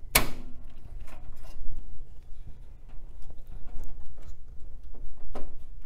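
A 3.5-inch hard drive being worked by hand in a PC tower's metal drive bay with sliding tabs: a sharp click at the start, scattered small clicks and scrapes of the drive and tabs, and another click near the end. The drive is a tight fit.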